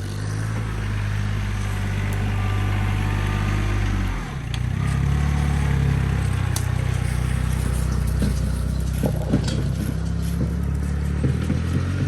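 Compact RK25 tractor's engine running steadily, its note shifting about four seconds in as the revs change. A few light knocks come near the end.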